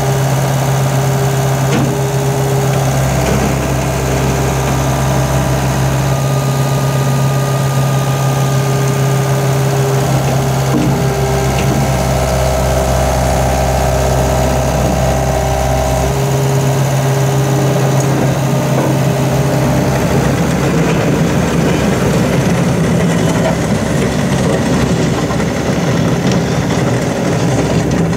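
2006 Takeuchi TL150 skid steer's diesel engine running steadily. A deeper low hum swells for a few seconds twice, about three seconds in and again around twelve seconds in.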